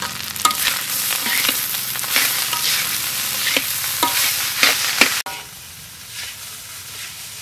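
Metal spatula stirring and tossing fried rice in a hot wok, with repeated clinks and scrapes of metal on metal over steady sizzling. About five seconds in, the clinks stop and the sound drops suddenly to a quieter sizzle.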